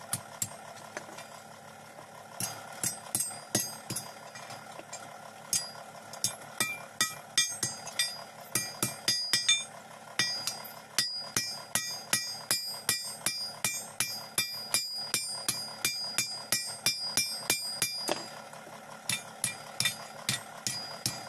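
Blacksmith's hand hammer striking an iron sarota blade on a steel anvil block: a steady run of sharp, ringing metal blows, two or three a second. The blows stop briefly about a second in and again near the end.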